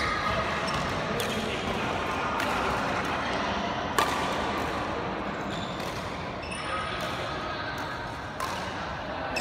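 Badminton rackets striking a shuttlecock during a rally, a series of sharp hits with the loudest crack about four seconds in, along with footfalls on the court, echoing in a large sports hall.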